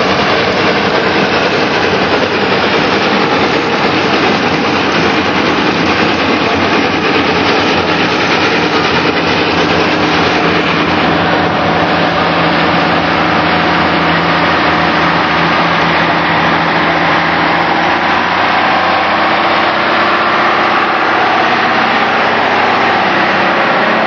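Steam traction engine running steadily, a dense mechanical din with a few steady tones underneath that become clearer about halfway through.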